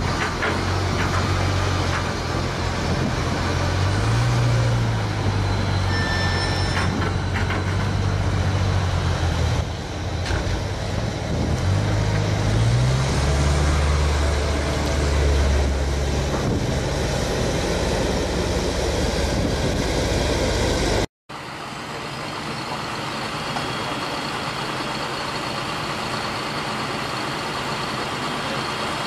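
Large farm tractors' diesel engines running under load while rolling and compacting a silage clamp, the engine note rising and falling a few times. About two-thirds of the way in the sound cuts abruptly and another tractor's engine continues, steadier and a little quieter.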